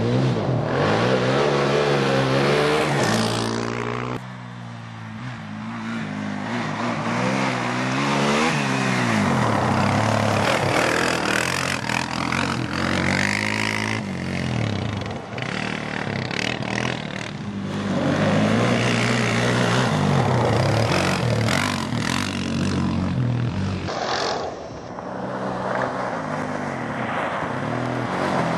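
Arctic Cat DVX 400 quad's single-cylinder four-stroke engine being ridden hard, repeatedly revving up and easing off so its pitch climbs and drops. It fades briefly twice as it pulls away.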